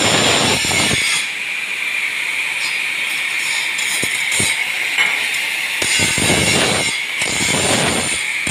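Handheld angle grinder with its disc grinding into a steel bar, giving a steady high whine and a hiss of metal being cut away, with a few heavier surges as the disc is pressed harder.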